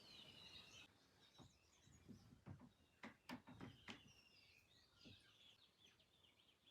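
Faint birdsong: short chirps and trilling calls, with a few soft clicks or knocks clustered about two to four seconds in.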